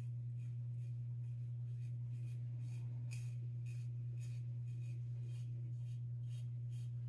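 Gillette Aristocrat double-edge safety razor with a Super Thin blade scraping through stubble in quick short strokes, about two to three a second, over a steady low hum.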